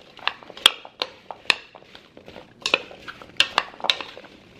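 A metal spoon stirring chopped apples in a mixing bowl, clinking and scraping against the bowl in an irregular string of sharp clicks.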